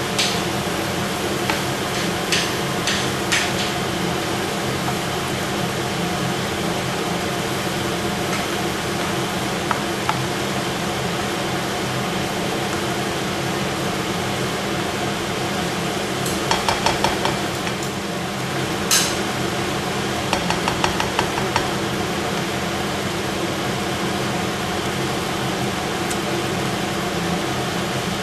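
Chicken in cream sauce cooking on high heat in a pan, giving a steady sizzling hiss over a low hum. A utensil clicks against the pan a few times early on and in two quick rattling runs a little past halfway, with one sharper knock between them.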